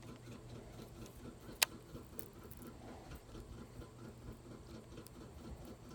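Abu Garcia Black Max baitcasting reel being cranked on the retrieve, giving a soft, fast, rhythmic ticking, with a single sharp click about a second and a half in.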